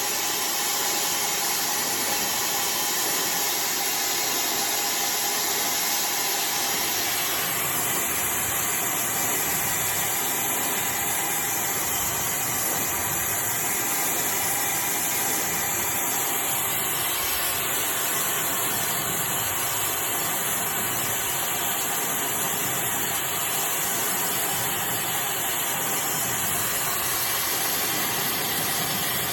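iDryer AI Pro Style hair dryer blowing steadily: a constant rushing hiss of fan and airflow. Its hiss changes tone slightly from about eight seconds in until shortly before the end.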